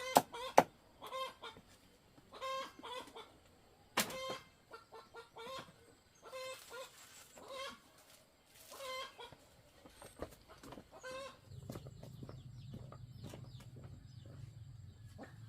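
Chickens clucking in short repeated calls, with a few sharp chopping strikes at the start and one about four seconds in. A low steady hum comes in near the end.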